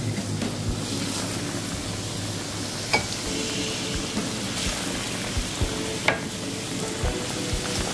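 Breaded pork cutlet rolls frying in hot oil in a pan: a steady sizzle, with two sharp clicks about three and six seconds in.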